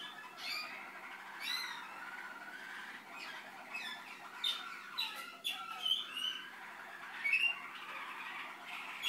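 Malinois (Waterslager) canary singing: a continuous string of short gliding notes and trills that rise and fall, varying from phrase to phrase.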